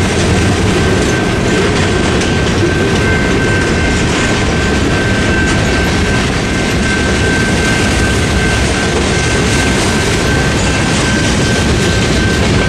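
Freight cars rolling through a level crossing, their wheels clacking over the rail joints. Behind them the crossing's General Signals Type 2 electronic bell rings steadily.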